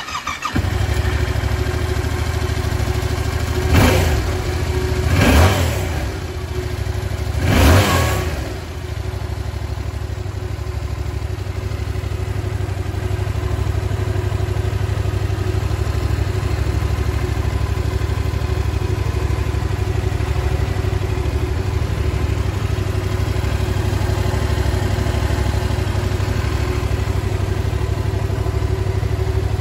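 Yamaha YZF-R7's 689 cc parallel-twin engine idling just after starting, revved three times in the first eight seconds or so, then settling to a steady idle.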